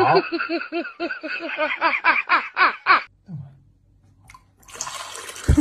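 A person laughing in a quick run of short rising-and-falling 'ha' sounds, about four a second for some three seconds, then a pause and a short burst of noise near the end.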